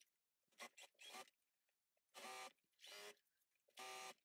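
Electric sewing machine stitching in short runs of about half a second, three of them in the second half, as the seam is sewn over the drawstring cording. The sound is faint, a small motor hum with the needle going.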